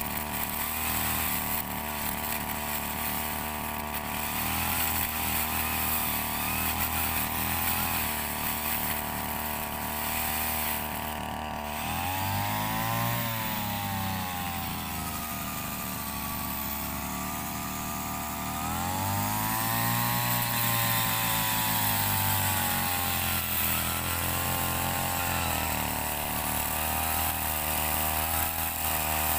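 Backpack brush cutter's small engine, fitted with a chainsaw bar and chain, running at working speed as it saws into a coconut palm trunk. The engine revs up and back down twice, about twelve seconds in and again about nineteen seconds in.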